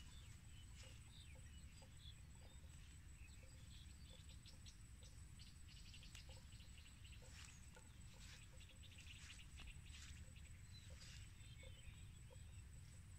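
Near silence: faint open-air ambience of scattered small high chirps and ticks and a steady high-pitched whine over a low rumble.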